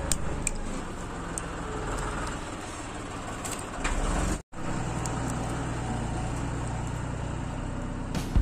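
Steady low background rumble with a few light clicks from hands working an RJ45 crimping tool and network cable. The sound cuts out for a moment about halfway through.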